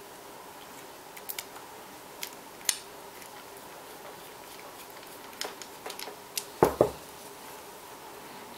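Scattered small metallic clicks and taps of parts being fitted by hand into the front housing of a Biax electric scraper during reassembly, with two louder knocks in quick succession about two-thirds of the way through.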